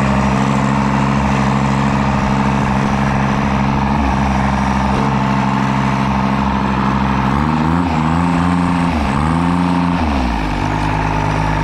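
Kubota G6200 lawn mower's small diesel engine, fitted with a K03 turbo, running steadily; about eight seconds in the revs rise and dip twice, then settle slightly lower.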